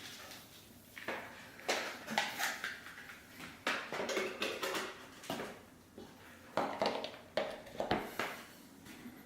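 Handling sounds of a phone charger and plug adapter being pushed into a power socket: a scattered series of short plastic clicks and knocks.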